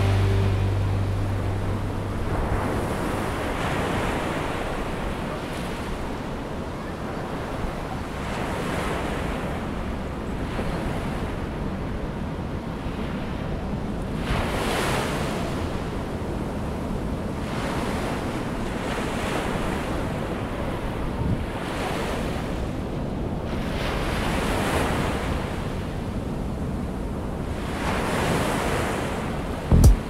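Ocean surf breaking and washing up the beach in swells every five or six seconds, with wind rumbling on the microphone.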